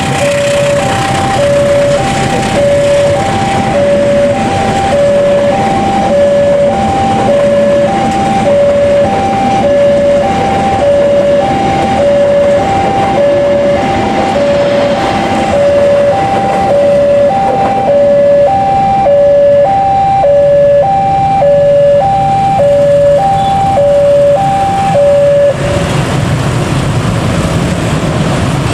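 Level-crossing warning alarm chiming two alternating notes, high and low, about one pair a second, over the rumble of a passenger train's coaches rolling past. The alarm stops a few seconds before the end, leaving the low running of motorcycle engines as traffic moves across the tracks.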